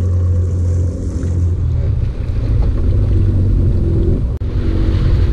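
Yamaha FX Cruiser HO WaveRunner's engine running steadily underway, a low drone mixed with water splashing at the hull and wind on the microphone, with a brief break about four seconds in.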